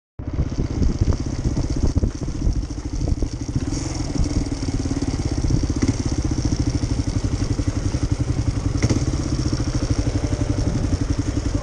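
Off-road vehicle engine running steadily, its firing pulses coming fast and even.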